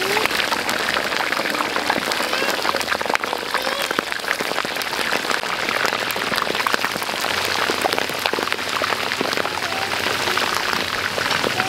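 Beef chops deep-frying in hot oil in a large wok: a steady, dense sizzle and crackle of spitting oil.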